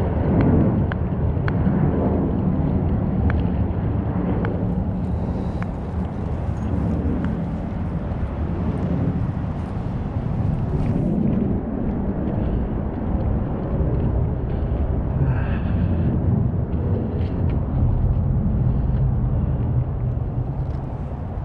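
Low, steady rumbling noise with a few faint clicks, like wind buffeting the microphone.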